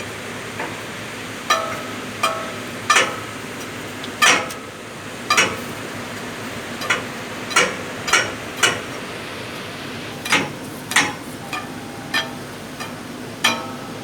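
A hammer striking metal parts of a grinding mill during repair, with irregular blows about once a second, some ringing briefly.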